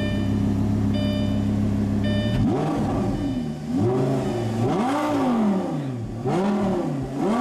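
Lamborghini Gallardo LP560-4's V10 through an Armytrix exhaust, idling steadily, then revved in quick blips from about two and a half seconds in, about four sharp rises and falls in pitch. An electronic chime beeps about once a second during the idle.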